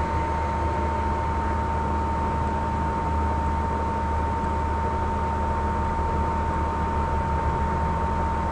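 Steady background hiss and low hum with a constant high-pitched tone, with no distinct event: the noise floor of the recording.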